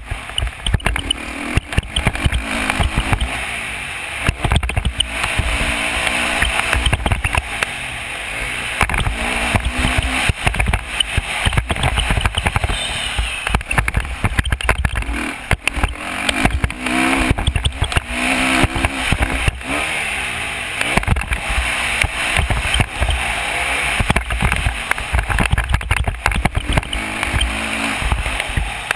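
Dirt bike engine running under load on a motocross lap, its pitch rising and falling as the rider works the throttle, heard from a helmet-mounted camera with heavy wind buffeting on the microphone and frequent knocks.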